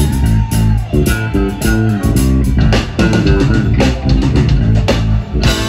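Live band playing with electric bass guitar to the fore over a steady drum beat.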